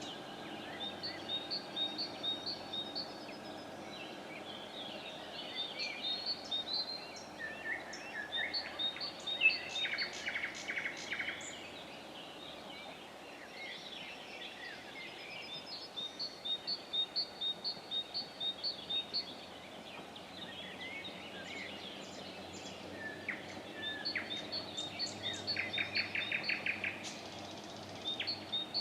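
Several songbirds singing: repeated series of short high chirps, with fast trilled phrases twice, over a faint steady low hum.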